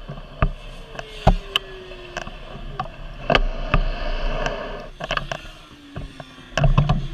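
BMW HP2 Sport motorcycle with its engine off, rolling slowly: scattered sharp clicks and knocks, a faint whine sliding slowly down in pitch twice, and a brief louder low rumble near the end.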